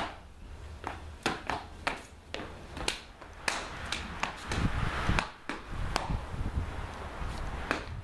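Sharp, irregular slaps and claps from hands striking hands and body in a Kenpo karate form, several a second, mixed with shoes scuffing and stamping on a concrete floor; the scuffing and thumps are densest around the middle.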